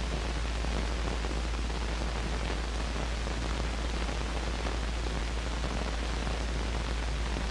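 Steady hiss with a low hum underneath and no other sound: the background noise of an old film soundtrack.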